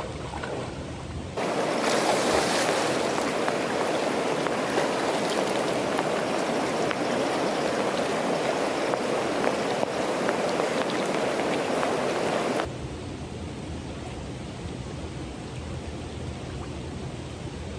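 River water rushing over rocks, a dense steady splashing that starts suddenly about a second in, runs loud for about eleven seconds and then cuts off, leaving a quieter steady hiss of water and rain.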